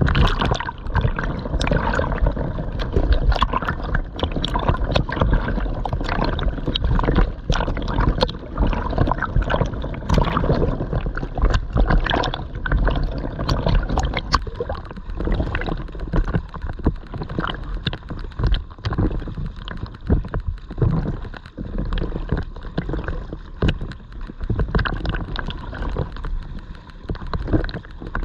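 Ocean water splashing and gurgling close to the microphone as a swimmer strokes through it, with irregular sharp splashes throughout.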